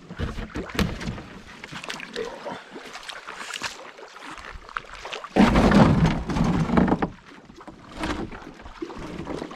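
Canoe on open water: irregular splashing and knocking of water against the hull, with a louder rushing burst lasting over a second about five and a half seconds in.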